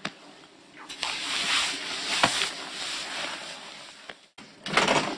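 Clothing rustling as two men break from a hug, with a single soft pat about two seconds in. A short, louder burst of sound follows near the end.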